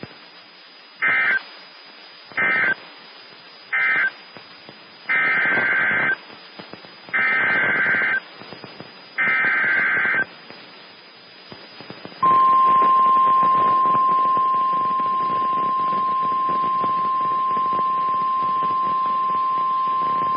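NOAA Weather Radio alert signalling over receiver hiss. First come three short bursts of warbling digital data tones, then three longer ones: the SAME coded bursts that end the previous message and head a new severe thunderstorm warning. About 12 seconds in, the single steady 1050 Hz warning alarm tone starts and holds.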